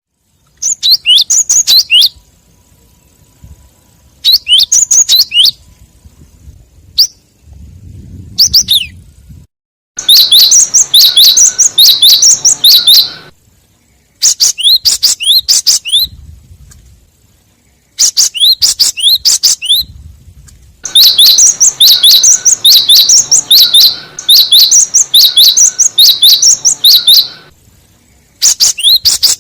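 Recorded glatik bird calls played as a lure: fast runs of high, sharp chirps in phrases of about one to three seconds with short pauses between, and a longer unbroken run of about six seconds in the second half.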